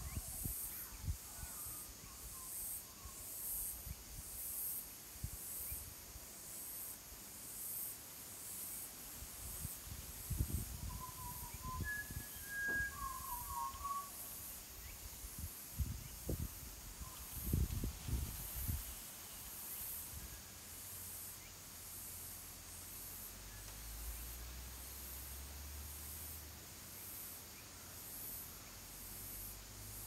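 Pulsing high-pitched insect chorus, about one pulse a second, with a few short bird chirps. Gusts of wind rumble on the microphone in the middle.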